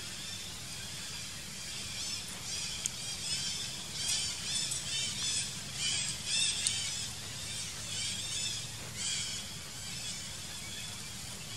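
Runs of short, high-pitched chirping animal calls, starting about two seconds in and fading near the end, over a steady low rumble.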